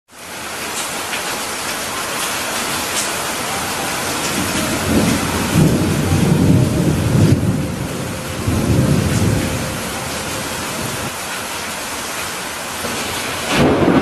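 Heavy rain pouring steadily, with thunder rumbling deeply twice around the middle and again starting near the end.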